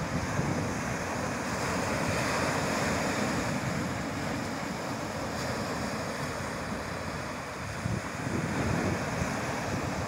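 Small sea waves breaking and washing up the beach: a steady surf wash that swells about two seconds in and again near the end. Wind buffets the microphone with a gusty low rumble.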